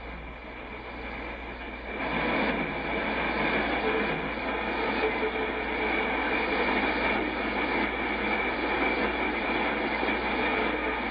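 Shortwave static and hiss from a Yaesu FTdx10 receiver in AM mode. About two seconds in, as the dial settles on 17,780 kHz, a weak signal comes up through the noise, and it then holds steady.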